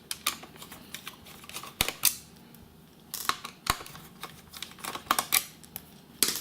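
Small sharp clicks and taps in irregular clusters: a screwdriver working small screws out of a laptop's plastic underside, with the case and screws being handled.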